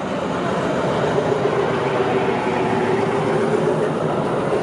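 Passenger train coaches rolling past at close range, their wheels running over the rails in a steady, loud rush with a steady tone held through it.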